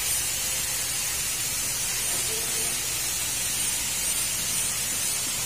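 Steady hissing noise with a low hum beneath it, the constant background of the workshop, with faint voices briefly about two seconds in.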